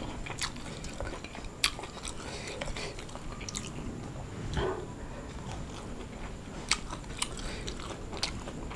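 A person chewing mouthfuls of crispy fried baby fish close to the microphone, with sharp crunches every second or two.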